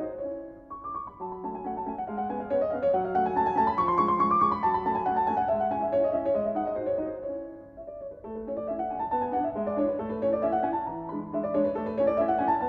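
Piano music: runs of notes climbing and falling, easing briefly about two-thirds through before climbing again.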